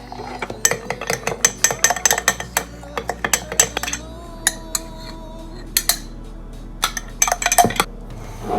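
Rapid, irregular clinks of a metal utensil against dishware, in two runs with a short pause between, over soft background music.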